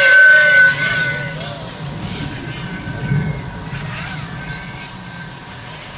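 Small HDZero Lightswitch V2 FPV drone's motors and propellers whining in flight, the pitch wobbling with throttle. The whine is loudest in the first second or so and then grows fainter and wavers as the drone flies off.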